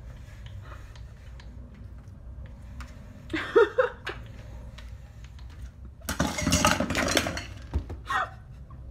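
Metal pet food bowls clattering and clinking on the floor beside a door. There is a short burst about three seconds in, a longer, louder clatter from about six to seven seconds, and a brief one near the end.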